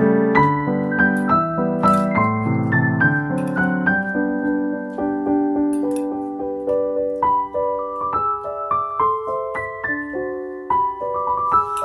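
Background piano music: a melody of struck notes over lower chords.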